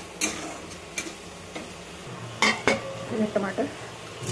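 Metal spatula clinking and scraping in a steel kadhai as onion masala fries with a light sizzle, with two sharper metal clinks close together about halfway through.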